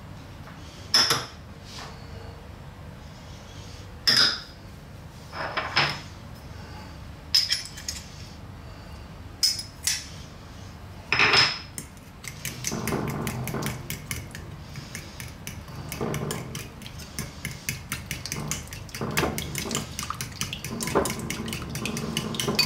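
A few separate clinks and knocks as ingredients go into a ceramic bowl. Then, about halfway through, a small wire whisk beats a liquid marinade: fast, continuous clinking of wire against the bowl.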